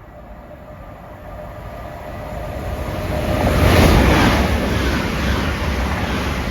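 Two coupled Class 387 electric multiple units passing through without stopping, growing louder as they approach to a peak about four seconds in, then a steady loud wheel-on-rail noise with a low rumble as the carriages go by.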